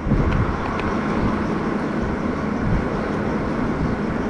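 Skid steer engine running steadily, its level stepping up suddenly at the start and then holding even.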